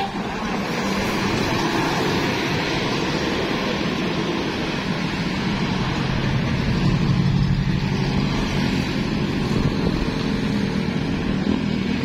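Road traffic: vehicle engines running and tyres on the road, a steady rumble.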